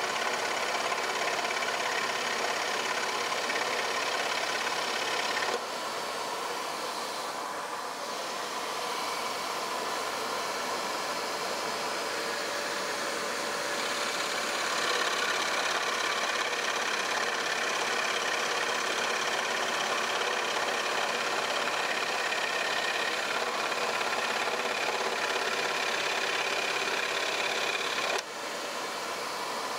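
Axminster AW405FS scroll saw running steadily, its blade cutting small pieces of 8 mm plywood. The level drops slightly about five seconds in and dips briefly near the end.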